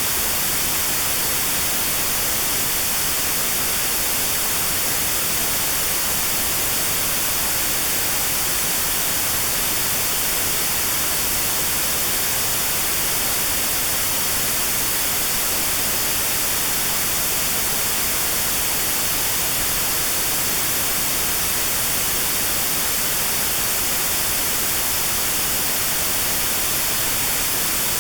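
Notch-filtered white noise: a steady, even hiss with a narrow band around 4 kHz removed, made as notched sound therapy for tinnitus at that frequency.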